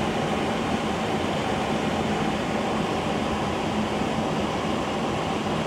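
Steady hiss with a faint low hum from an idling vehicle with its fan running, unchanging throughout.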